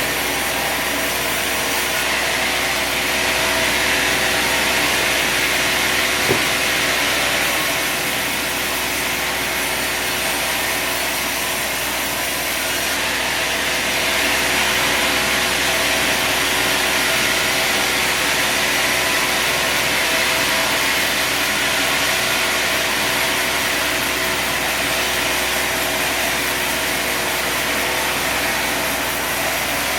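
Sawmill running steadily, its blade sawing through a log with a constant engine hum. There is a single sharp click about six seconds in.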